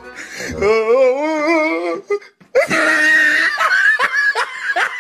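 A wavering, drawn-out voice, then after a short break a burst of high-pitched laughter in quick rising "ha" pulses, several a second.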